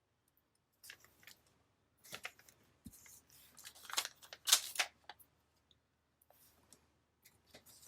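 Paper and sticker sheets being handled and stickers peeled and pressed down: a scatter of short crinkles and light taps, loudest about halfway through, then quieter.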